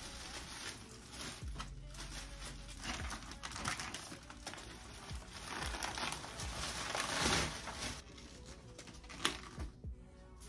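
Clear plastic bag crinkling and rustling as it is handled, densest about seven seconds in, with one sharp knock just after nine seconds.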